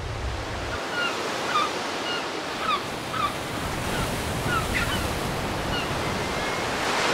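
Surf: waves breaking and washing over rocks in a steady rushing wash, with short bird calls scattered through it.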